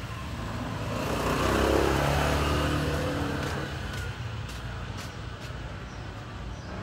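A motor vehicle passing on the street: its engine grows louder for the first couple of seconds, falls in pitch as it goes by and fades, over steady street noise.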